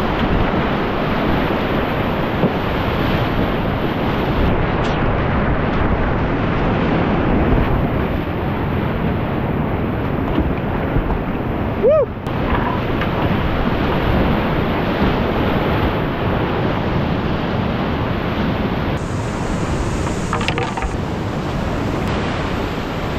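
Loud, steady rush of glacial whitewater rapids heard from a kayak in the current, the river churning and splashing around the boat.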